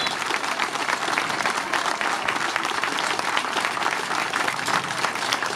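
Crowd applauding steadily, a dense, even sound of many hands clapping.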